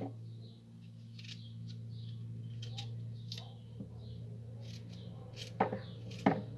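Kitchen knife cutting peeled raw cassava into small chunks by hand: a few soft cuts and clicks, two louder ones near the end, over a steady low hum.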